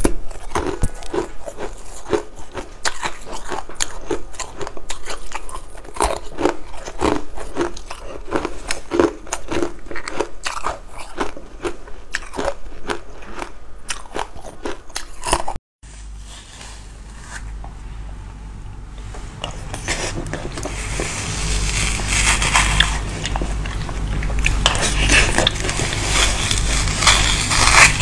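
Close-miked crunching and biting of frozen coloured ice sticks, a dense run of crisp crunches. About halfway through the crunching cuts off abruptly, and a steadier, hissier stretch with a low hum follows.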